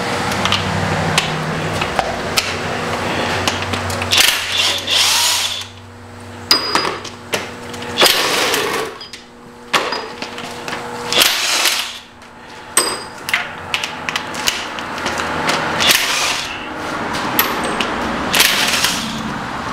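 Pneumatic impact wrench on a 9/16 socket, loosening bolts in several short bursts with pauses between, over a steady hum.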